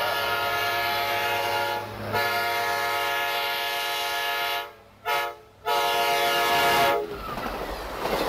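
Amtrak diesel locomotive's air horn blowing a grade-crossing signal: two long blasts, one short, then a final long blast, several tones sounding together. The horn stops about seven seconds in, and the rumble of the passing train follows.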